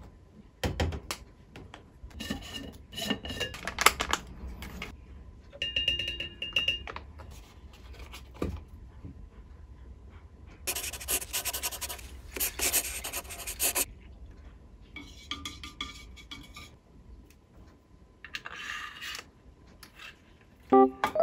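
Kitchen handling sounds on a stainless steel counter: knocks, clinks and rubbing as a milk carton and a metal tumbler are moved about. Midway, milk pours into the stainless steel tumbler for about three seconds.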